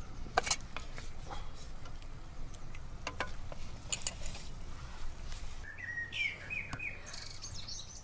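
Birds chirping in the background, with scattered sharp clinks of metal cutlery against steel camping plates as food is served; a run of chirps comes about six seconds in.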